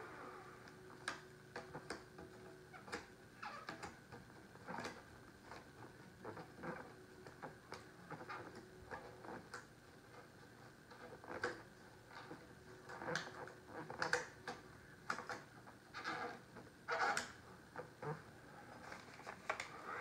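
Faint, irregular crackles and light taps of plastic wrap film being pressed and smoothed by hand around the edge of a wooden board.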